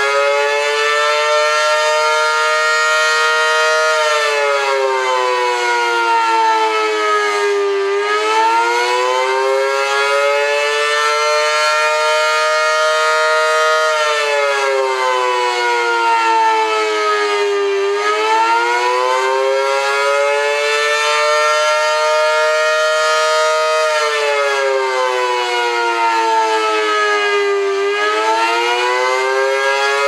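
Model 5T mechanical outdoor warning siren sounding the wavering Attack signal. Its pitch rises, holds high for a few seconds, then falls, in a loud cycle that repeats about every ten seconds.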